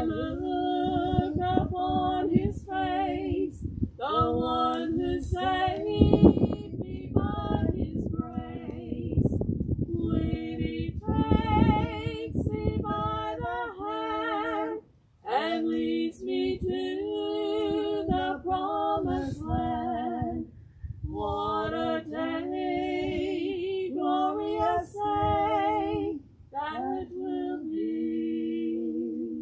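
A woman singing a slow song solo and unaccompanied, in phrases of held, wavering notes with short breaths between them. The last note is held and then ends. Low rumbling noise sits under the voice for several seconds near the middle.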